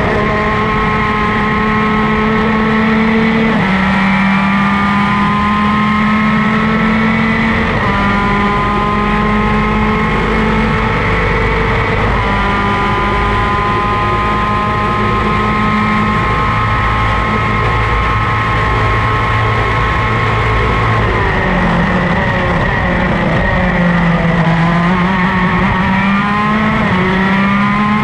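Superkart's 250cc two-stroke engine heard onboard at racing speed. Its pitch climbs and drops sharply at each of three upshifts in the first twelve seconds, holds high at full throttle, then falls away for braking and downshifts about three-quarters of the way in before it climbs again near the end.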